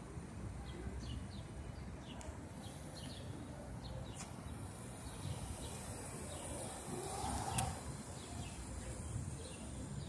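Small birds chirping in short, repeated calls over a steady low rumble of street traffic.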